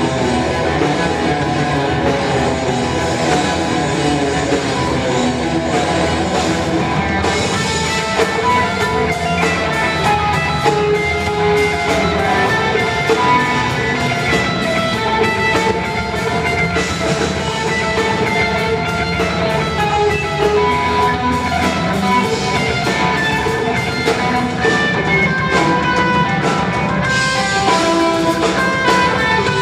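Rock band playing live: electric guitar over a drum kit, with steady cymbal and drum hits.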